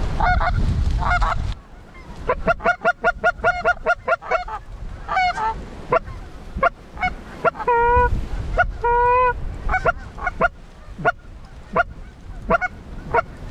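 Hand-blown goose call: a fast run of short clucks at about five a second, then two longer honks and scattered single clucks, calling to Canada geese. Wind buffets the microphone for the first second and a half.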